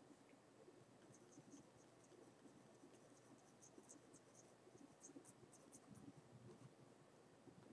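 Faint scratching of a mechanical pencil's lead on paper in many short strokes.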